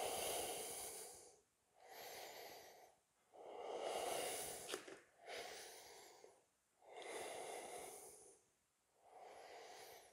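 A yoga teacher's slow, deep breathing while holding a pose: about six long, audible breaths in and out, each roughly a second and a half, with short pauses between them.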